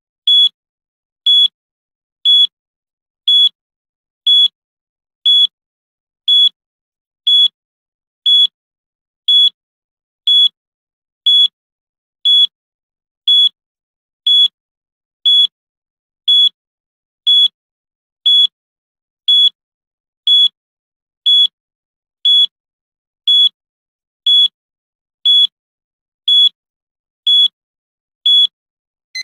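Electronic countdown-timer beep: a short, high-pitched single beep once every second, each one marking a second counted off, in a steady, even rhythm.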